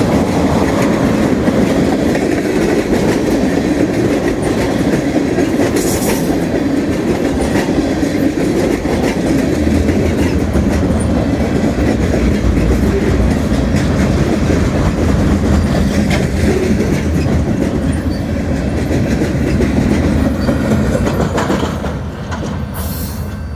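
Freight train cars rolling past in a steady rumble, wheels clicking over the rail joints; the sound eases off near the end.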